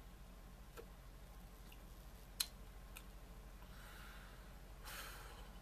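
A man puffing on a cigar: a few faint mouth clicks from drawing on it, one sharper pop about two and a half seconds in. Near the end come two soft breathy exhales of smoke. A steady low electrical hum runs underneath.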